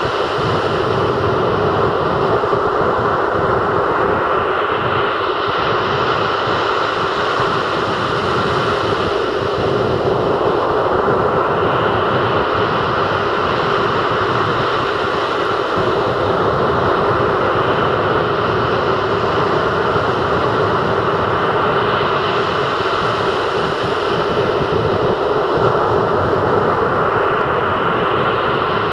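Rough sea surf breaking on a sandy shore: a loud, continuous wash of breaking waves that swells and eases every few seconds as each wave breaks and runs up the beach.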